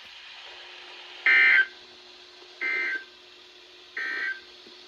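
Three short buzzy bursts of the EAS end-of-message data signal from a weather radio broadcast, marking the close of the weekly test. They come about a second and a half apart, the first loudest, over a faint steady hum and radio hiss.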